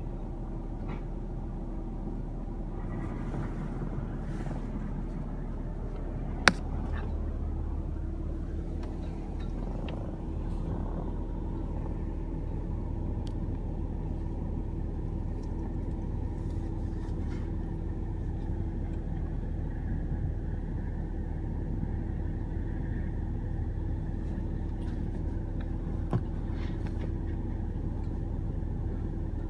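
A truck's engine runs steadily with a low rumble and a constant hum. A sharp click or knock comes about six seconds in, and a lighter one near the end.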